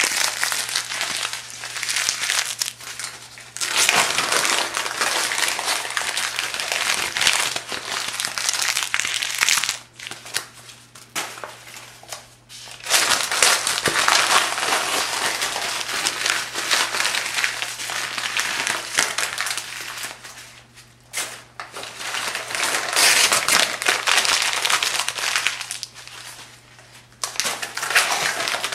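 Thin phone-book pages being crumpled by hand, a dense crinkling that comes in long bursts broken by a few short pauses.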